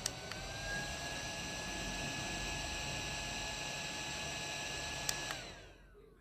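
Small personal fan running with a steady whirr and a motor whine. A click comes about five seconds in, and the motor then winds down, its whine falling in pitch as it is switched off.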